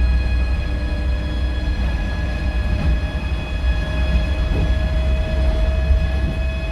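Scania K230UB bus running on the move, heard on board: a deep steady engine drone with several steady whines from the turbo and driveline above it. One whine rises slowly in pitch from about four seconds in.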